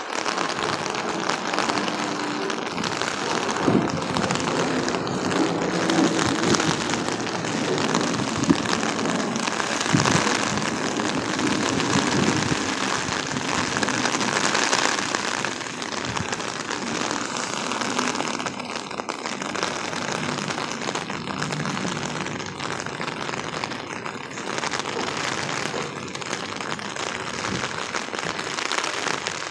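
Heavy torrential rain pouring steadily onto a paved street, sidewalk and lawn.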